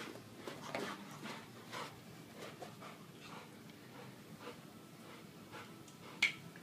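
Dog panting hard from chasing, with quick rhythmic breaths about two a second that grow fainter. A single sharp click about six seconds in.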